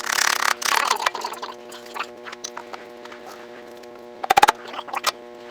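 Handling and scraping of metal parts, then a quick cluster of sharp metallic clicks about four seconds in: a piston ring snapping into the cylinder bore of a Saylor Beall air compressor as the piston leaves the ring compressor, which is normal.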